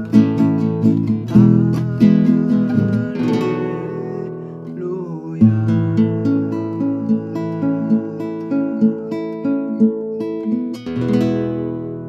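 Acoustic guitar music, plucked and strummed chords, ending on a chord struck about eleven seconds in and left to ring out.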